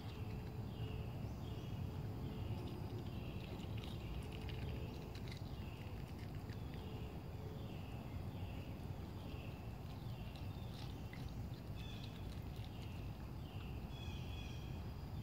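Outdoor ambience: a short falling chirp repeats about once a second throughout, with scattered faint clicks and a steady low rumble beneath.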